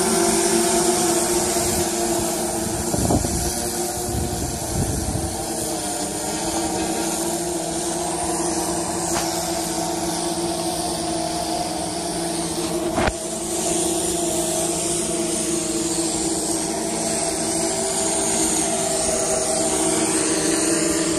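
DJI S1000 octocopter's eight rotors humming steadily in flight, a buzz of several held tones. A few low thumps around three to five seconds in, and a sharp click about thirteen seconds in.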